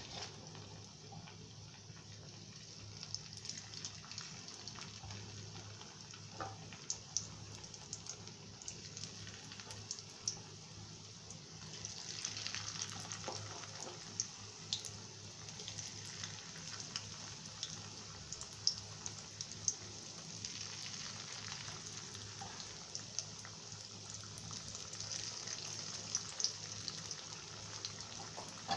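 Marinated baby corn deep-frying in hot oil in a kadai: a steady sizzle with many small pops and crackles scattered through it.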